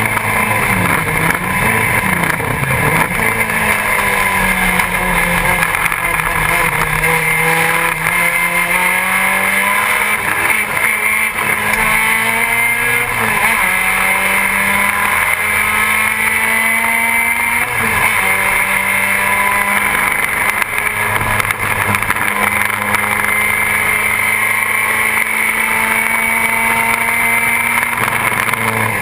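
BMW 2002 race car's four-cylinder engine heard from inside the cabin, running at full throttle, its pitch climbing steadily and dropping back at each gear change, with two clear shifts in the middle. Steady road and wind noise runs underneath.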